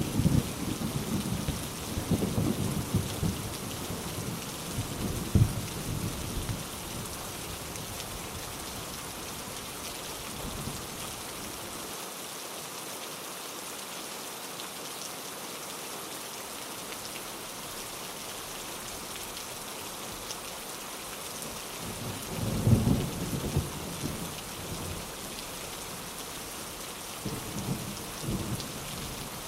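Steady heavy rain with rolling thunder: a rumble at the start dies away over the first few seconds, another loud roll comes about 22 seconds in, and weaker rumbles follow near the end.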